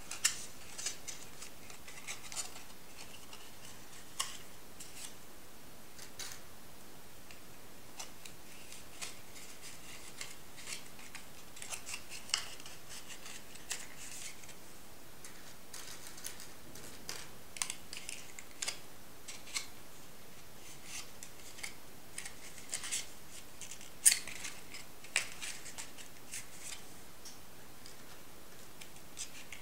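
Stiff coloured drawing paper being folded and creased by hand: irregular crisp crackles and rustles, one sharper snap standing out a little past three-quarters of the way through.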